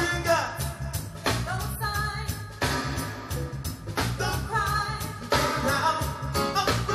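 Live reggae band playing, with electric guitar, bass and a drum kit keeping a steady beat, and a male lead singer's voice over it.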